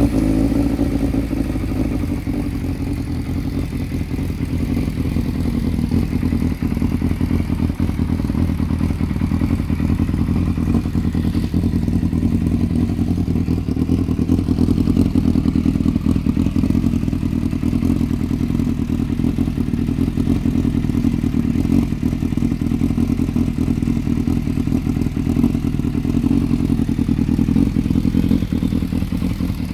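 Yamaha Fazer 600's inline-four engine running steadily through its scrambler test exhaust, a deep, even pulsing close to idle.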